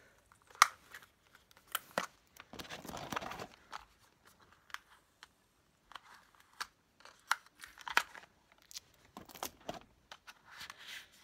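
Packaging being torn open and crinkled while a small puzzle is unpacked, with scattered sharp clicks and taps of small pieces being handled. Two longer stretches of rustling tearing come about two and a half seconds in and again near the end.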